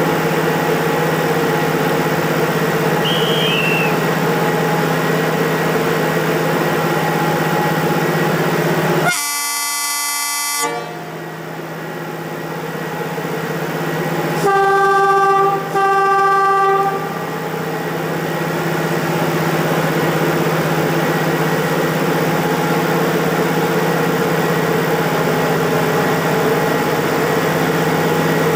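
Passenger train locomotive running with a steady hum at a station. About nine seconds in it gives one long horn blast, then two shorter, lower toots about five seconds later, and its sound slowly builds as it starts moving.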